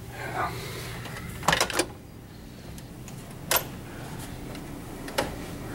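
A dorm door and its latch hardware being worked: a few sharp clacks and knocks, a close pair about a second and a half in, then single ones about two seconds and about three and a half seconds later.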